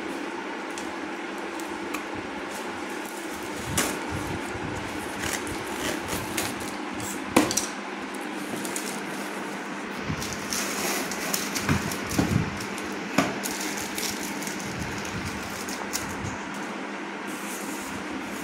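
Handling and opening a cardboard parcel: scissors snipping through packing tape and a strip of brown tape being torn off the box, with scattered knocks and taps on the cardboard, over a steady hum.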